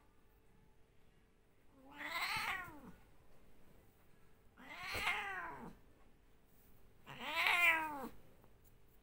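Domestic cat meowing three times, spaced a few seconds apart. Each meow lasts about a second and rises then falls in pitch.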